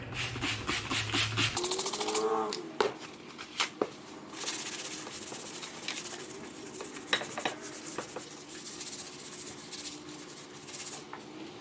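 Scrubbing and rubbing grime off an old bench vise with cleaner, in fast scratchy strokes, with a short squeak about two seconds in and scattered light knocks of tools against the vise.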